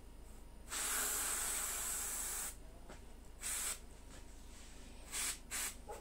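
Gravity-feed airbrush spraying paint in a hiss of air: one long spray of about two seconds, then three short puffs.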